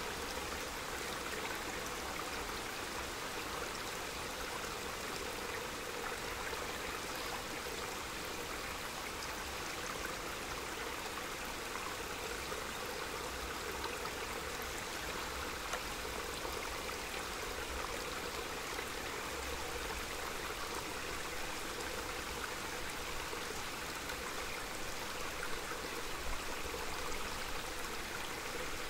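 A small mountain stream running steadily, a continuous even rush of flowing water.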